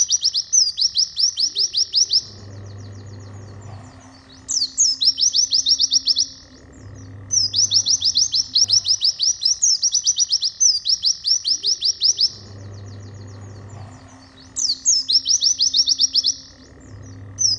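White-eye (pleci) singing a fast tutor song: bursts of rapid, high chirps, each falling in pitch, run together for one to several seconds at a time and repeat after short pauses.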